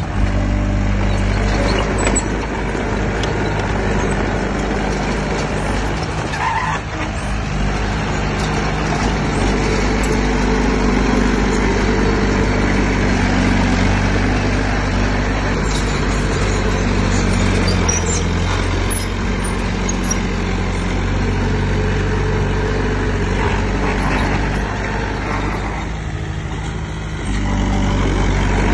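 Heavy diesel engine of earthmoving machinery running steadily under work, its low pitch shifting slightly, with a brief dip in level near the end.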